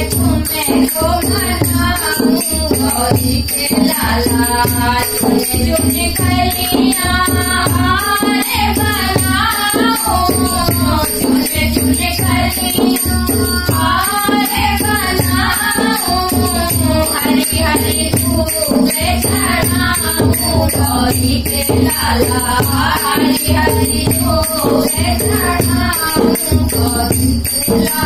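Women singing a Hindi devotional bhajan, accompanied by a dholak drum beaten in a steady rhythm and small hand cymbals jingling on the beat.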